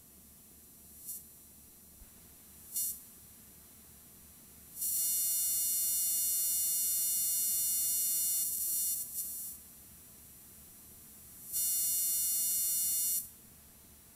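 Electronic buzzing tone coming in bursts: two short blips, then a long buzz of about four seconds and another of about a second and a half, over faint steady hiss.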